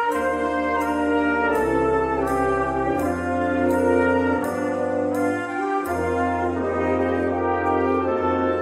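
Student orchestra playing a swing arrangement of a Christmas tune, with brass carrying the melody over a walking bass line and a steady beat of high cymbal-like ticks.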